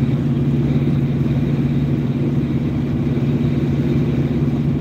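Truck cruising at highway speed, heard from inside the cab: a steady low engine drone over road and tyre noise.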